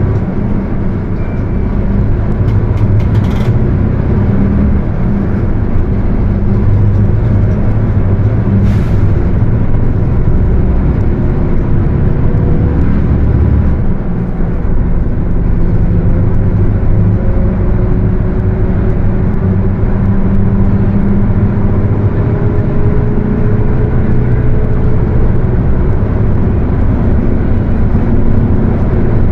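Mercedes-Benz OF 1721 diesel bus running on the road: a steady engine drone, with the differential growling and a faint whine that slowly rises in pitch in the second half as speed builds.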